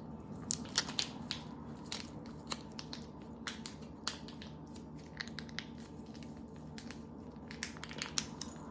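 Scattered small crackles and sharp clicks of gingerbread kit pieces and wrappings being handled, the strongest cluster about half a second to a second in, over a steady low hum.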